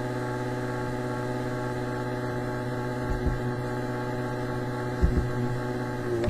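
A steady, unchanging electrical-sounding hum with a row of evenly spaced overtones, broken only by two soft low thumps about three and five seconds in.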